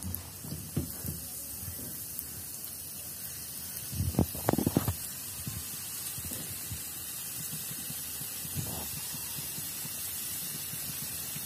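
Sel roti batter frying in hot refined oil: a steady sizzling hiss. A few low knocks come about four to five seconds in.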